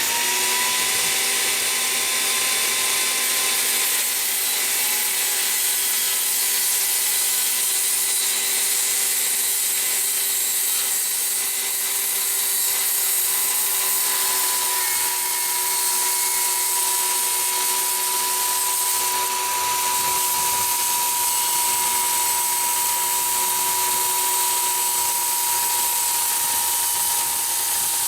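Electric power saw running continuously as it cuts through a door, with a steady motor whine.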